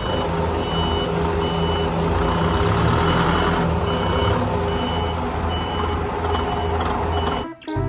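A forklift's reversing alarm beeping steadily, about two high beeps a second, over its engine running, cutting off suddenly near the end.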